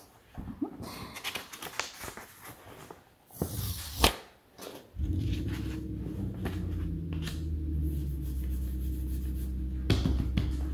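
Paper note cards being handled and flipped, with rustles and small clicks and one sharp tap about four seconds in. About halfway through a steady low hum begins and carries on.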